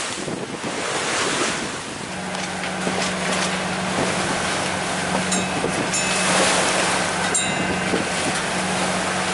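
Wind and rough water rushing past a sailing yacht, with wind buffeting the microphone. From about two seconds in, the boat's engine hums steadily underneath while motor-sailing, and a few light clicks come in the middle.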